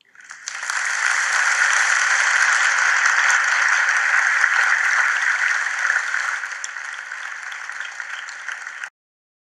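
Applause: a dense, even crackle of many hands clapping. It swells in over about half a second, eases off after about six seconds and cuts off abruptly near the end.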